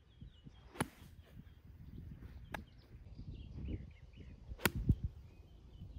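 Golf club striking the ball in short, sharp clicks: one about a second in, another at about two and a half seconds, and the loudest, a quick double click, near the end. Wind rumbles low on the microphone between the shots.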